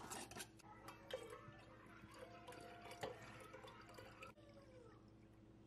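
Brewed coffee poured from a glass carafe into a glass mason jar, a faint trickle of liquid. There are a few light clicks of glass and lid near the start.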